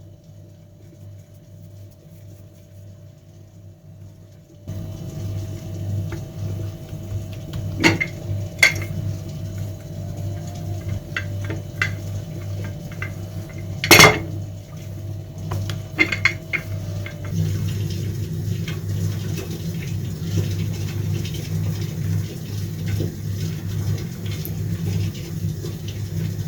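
Kitchen utensils clinking and knocking against pots and dishes, with a few sharp clanks, the loudest about halfway through, over a steady low hum.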